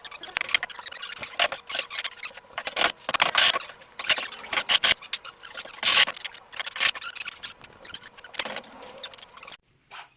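Irregular scraping, squeaking and clicking of hands-on work fitting a wooden room partition, a busy run of short sharp sounds that stops suddenly near the end.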